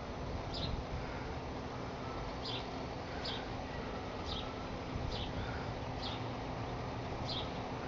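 A bird chirping, short high notes that slide downward, repeated roughly once a second, over steady outdoor background noise.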